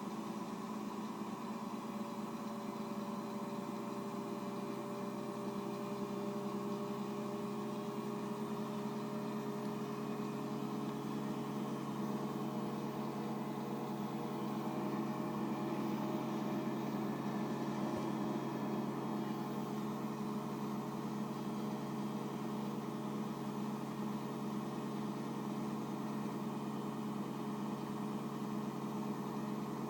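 Daewoo DWDM301WP washing machine in its final spin, the motor and drum turning at a steady speed with a steady whine and hum.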